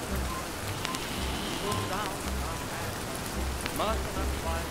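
Steady rain pattering on a surface, with muffled voices and faint low music underneath it.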